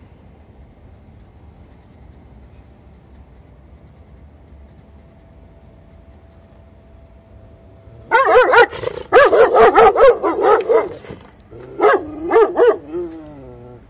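A chained dog barking: starting about halfway in, a fast run of loud, high, wavering barks for about three seconds, then two more barks and a falling whine near the end.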